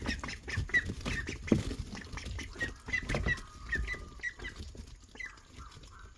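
Khaki Campbell ducks eating cut peaches: rapid pecking and clicking of bills on the fruit, with short high peeping calls throughout.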